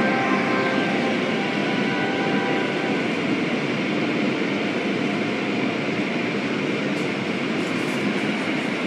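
Steady noise of an automatic tunnel car wash heard from inside the car, with hanging cloth strips sweeping over the car and water spraying onto it.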